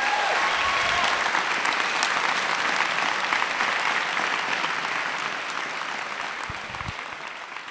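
Audience applauding, a dense steady clapping that slowly dies away over the last few seconds.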